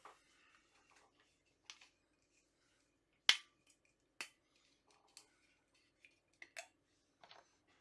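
Bottles and a shot glass being handled while mixing a drink: a handful of sharp clicks and light knocks of glass and caps set down and picked up, the loudest about three seconds in.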